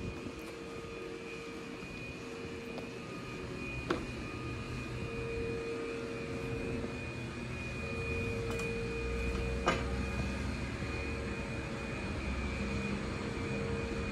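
Stopped electric train humming steadily at the platform, its onboard equipment giving a steady whine. A deeper low rumble joins about nine seconds in. Two sharp clicks come through, one about four seconds in and one near ten.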